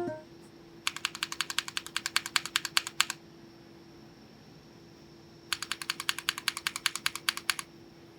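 Gateron Beer tactile mechanical keyboard switches pressed and released in quick succession, about ten sharp clacks a second, in two runs of around two seconds each with a pause between.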